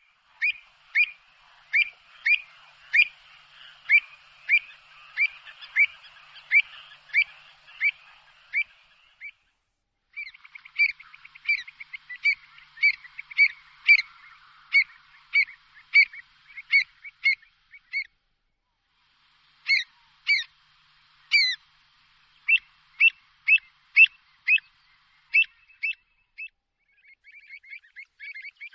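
Black-winged stilt calling: a long series of short, sharp calls, about one and a half a second, in three bouts with brief pauses, quickening into a rapid chatter near the end.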